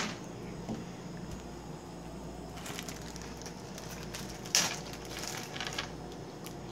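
Plastic bag or food packet crinkling as it is handled, in a few short crackly bursts about two and a half seconds in and again around four and a half to six seconds in.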